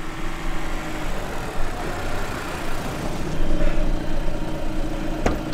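Van engine running as the van pulls up and idles alongside, with one sharp click near the end.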